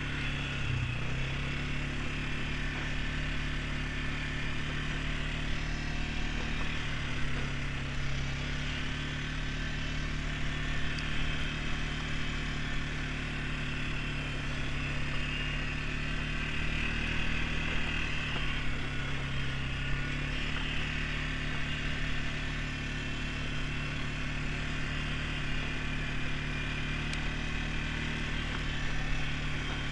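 ATV engine running while riding, a steady drone whose pitch rises and falls slightly a few times as the throttle changes.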